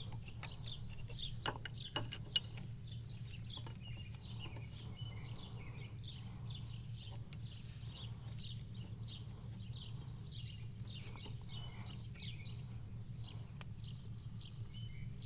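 Birds chirping over and over in quick short notes, over a steady low hum. A few sharp metal clinks about two seconds in, the loudest of them a single knock, as a wrench works on a fitting.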